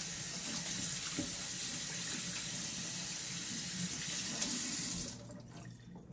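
Kitchen faucet running into a stainless steel sink while hands and arms are scrubbed under the stream. The water is shut off about five seconds in.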